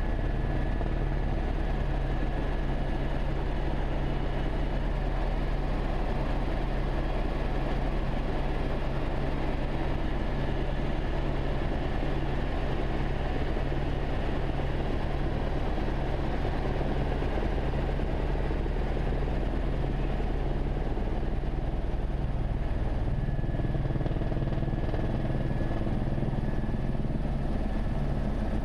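Écureuil helicopter in flight, heard from inside the cockpit: a steady low drone of rotor and engine with a thin, high turbine whine above it.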